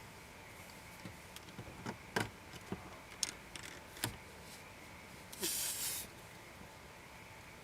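Scattered plastic clicks and knocks from a car phone mount being handled and pushed into place, with a short scraping rustle about five and a half seconds in.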